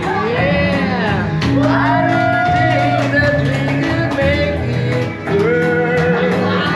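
A man singing karaoke into a microphone over a backing track, holding long notes that slide in pitch.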